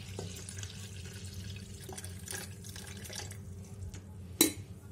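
Water poured from a plastic jug into the water reservoir of a Fakir KM 1011 filter coffee maker, splashing and then thinning to a trickle and drips after about three seconds. A single sharp knock near the end is the loudest sound.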